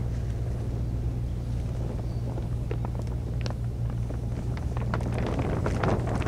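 A steady low engine hum, with scattered ticks and crackles that grow denser near the end.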